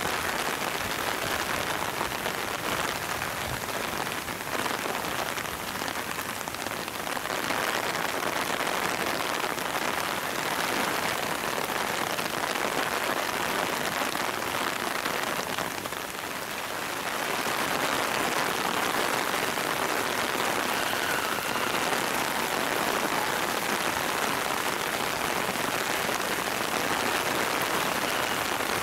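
Steady rain pouring down, an even hiss of falling drops that grows slightly louder in the second half.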